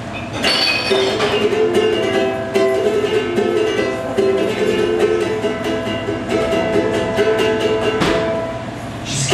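Ukulele strummed in a steady rhythm, chords with repeated strokes: the instrumental intro to a song.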